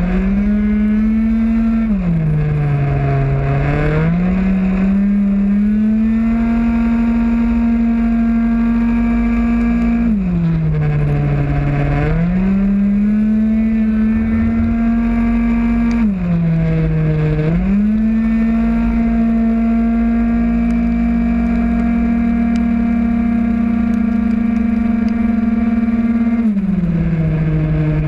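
Small two-stroke engine of a 50cc Mach G prototype racing scooter at full throttle, held at one steady high note on the straights. It drops in pitch and climbs back four times as the scooter slows for the corners. Wind rush runs underneath.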